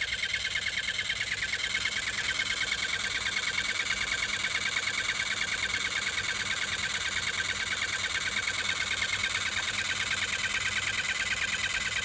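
Insects trilling in a steady, fast, even pulse, a high shrill drone.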